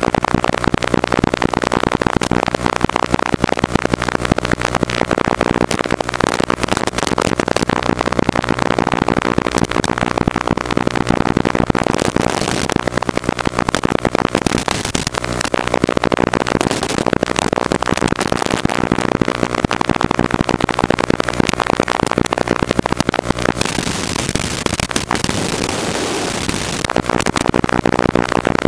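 Nighthawk 170 racing quadcopter's motors, heard as a crackling, distorted buzz whose pitch shifts as the quad banks and changes throttle, picked up by the onboard FPV camera's microphone and sent over the analog video link.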